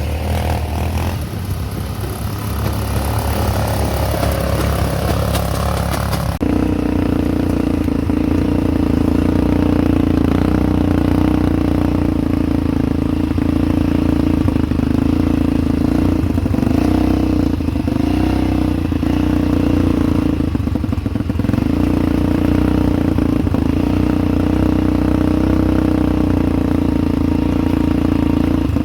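ATV engine running, with a steady, loud drone that changes abruptly about six seconds in and wavers briefly with throttle changes later on.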